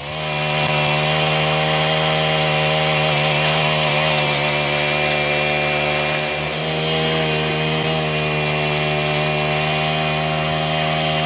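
Motorized power tool running steadily at constant speed, starting up at the outset and holding an even pitch throughout.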